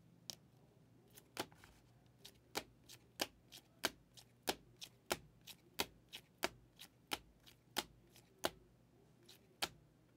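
A stack of trading cards in rigid plastic holders being flipped through by hand, each card clicking sharply against the stack, about three clicks a second after a short gap near the start.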